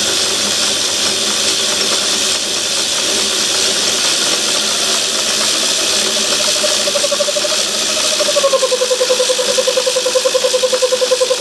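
Myford ML7 lathe running in reverse, its motor and change-gear train whining steadily as the carriage is brought back along the leadscrew between thread-cutting passes. About eight seconds in, the whine drops a little and takes on a fast, regular pulsing.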